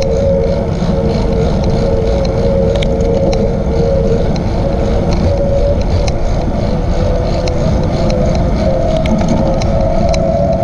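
Bicycle riding along a paved trail at about 12–14 mph: steady wind and tyre rumble on the camera's microphone, with a steady whine that rises slightly in pitch near the end, and scattered light ticks.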